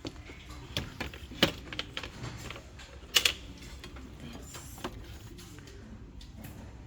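A few irregular sharp clicks and knocks, the loudest a quick pair about three seconds in, over a faint steady background hum.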